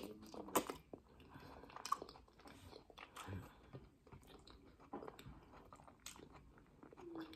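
A person chewing a piece of beef tripe close to the microphone, with irregular wet mouth clicks and smacks; the tripe is "kind of hard", a tough, chewy bite.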